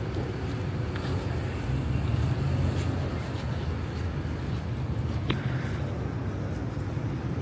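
Night street ambience: a steady low rumble of road traffic, with one sharp click about five seconds in.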